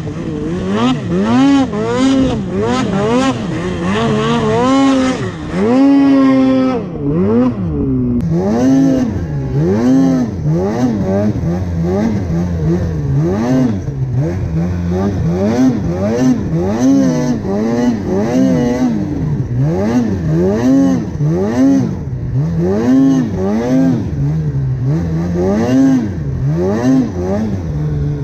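Snowmobile engine revving up and down over and over as the throttle is worked, about once a second, with a brief drop in revs about seven seconds in.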